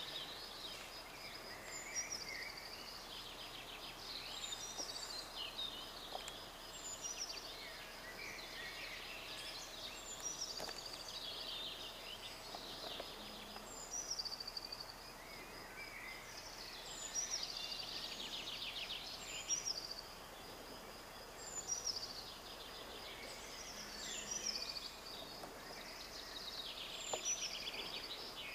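Songbirds singing in the trees: short phrases of high falling whistles and fast trills, one after another every second or two, over a faint outdoor hiss.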